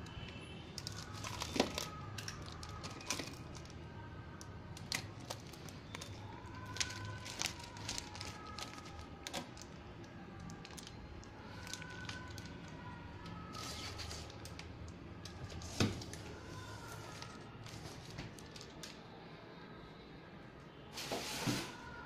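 Scattered light clicks and knocks over a low steady hum, with a louder rustling stretch near the end.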